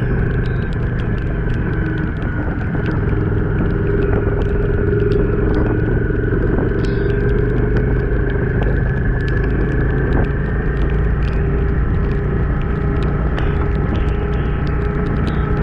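Yamaha XV400 Virago's air-cooled V-twin engine running steadily at cruising speed, with a rush of wind and wet-road tyre noise and scattered light ticks.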